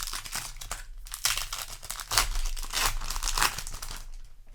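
Crinkling and rustling as Magic: The Gathering booster-pack wrappers and cards are handled, loudest in the middle.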